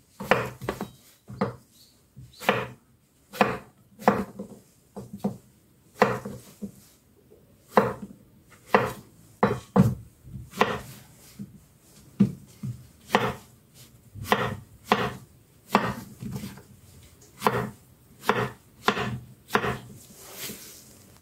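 Chef's knife cutting king oyster mushrooms into chunks on a wooden cutting board. It is a run of cuts, each ending in a knock of the blade on the board, about two a second and slightly uneven.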